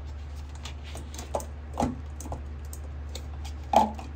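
A few light clicks and knocks of a wax warmer and its parts being handled and fitted together, the loudest knock near the end.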